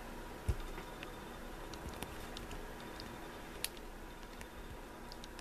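Faint, scattered small clicks and ticks of a steel pick working the pins of an older Corbin pin-tumbler lock held under tension, with a dull knock about half a second in.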